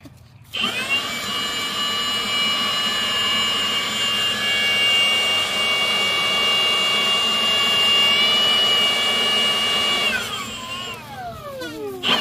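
Leaf blower whining up to speed about half a second in and running steadily at a high pitch, then switched off near the end, its whine falling in pitch as the fan winds down.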